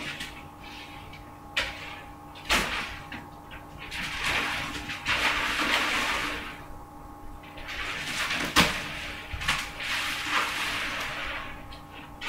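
A few sharp knocks and clicks, with swells of hissy noise between them, over a faint steady electrical hum.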